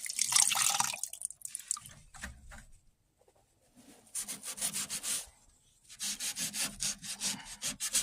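Abrasive fibre pad scrubbing back and forth on dry, stained wood to lift the old stain. It comes in bouts with pauses, ending in quick regular strokes of about five a second.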